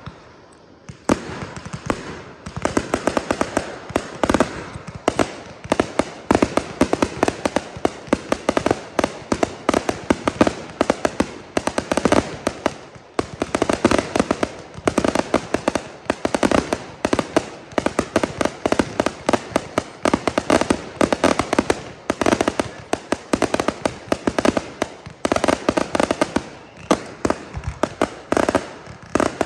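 Fireworks display: a dense, rapid string of bangs and crackles that starts about a second in and goes on almost without pause.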